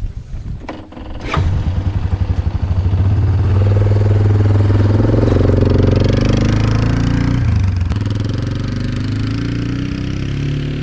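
A vehicle's engine ticks over, then revs up and pulls away about a second in. It runs steadily after that, easing off briefly near the middle before picking up again.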